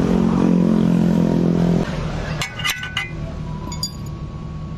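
A steady low hum that cuts off just under two seconds in, followed by a few quick, light metallic clinks with a short ring, and a brief high ding near the end.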